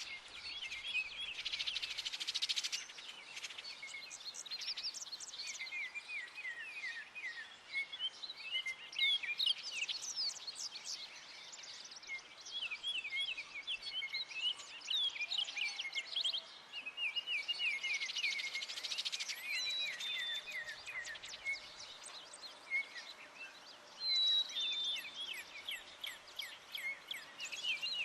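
Several songbirds chirping and singing at once, quick overlapping calls, over a faint steady hiss of rain.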